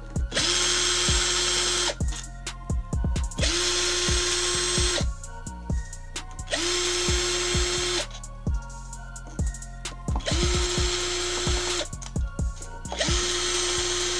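Cordless electric screwdriver running in five short bursts of about a second and a half each, its motor spinning up quickly to a steady whine, as it backs out the casing screws of a Minarelli AM6 moped engine. Light clicks of the bit and screws between bursts.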